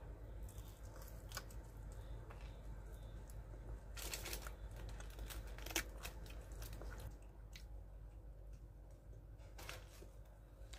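Eating crispy KFC fried chicken: faint crunching and chewing, with the crispy coating crackling as pieces are torn apart by hand. The sharpest crackles come around four to six seconds in and again near the end.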